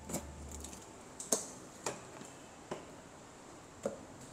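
A handful of short hard-plastic clicks and knocks as a scooter's rear luggage top box is handled and its lid catch worked. There are five sharp clicks at uneven spacing, the loudest just over a second in.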